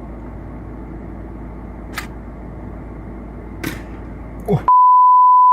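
A low steady hum with two faint clicks, then a loud, steady single-pitched electronic beep that starts near the end and holds.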